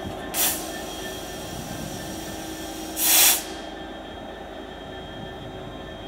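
Freightliner Class 66 diesel locomotive's EMD two-stroke V12 running steadily as it moves slowly past on its own. It lets out two short hisses of air: a brief one about half a second in, and a longer, louder one about three seconds in.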